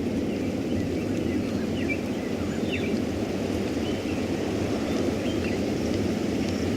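Steady low rumble of wind and a passing thunderstorm, with faint short bird chirps scattered over it.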